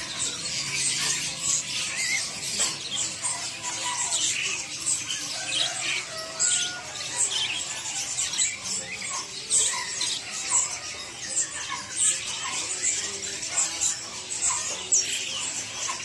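Many caged birds, budgerigars and canaries among them, chirping at once: a dense chorus of short, high chirps and twitters with no pause.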